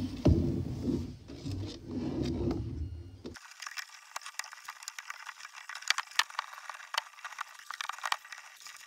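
Hands handling 3D-printed plastic generator parts on steel frame rods: knocks and scrapes for the first three seconds or so, then scattered light clicks and ticks.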